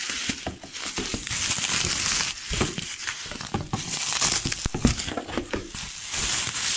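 Clear plastic packaging crinkling and crackling as it is handled and pulled off an unboxed tool, in a steady run of sharp crackles.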